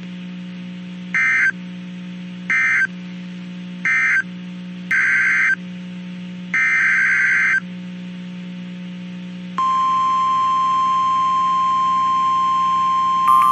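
Emergency Alert System digital data bursts: three short warbling bursts, typical of the end-of-message code that closes an alert, then two longer bursts of header data for the next alert. About ten seconds in, a single steady high alert tone starts and holds, like the 1050 Hz NOAA Weather Radio warning tone. A low electrical hum runs underneath.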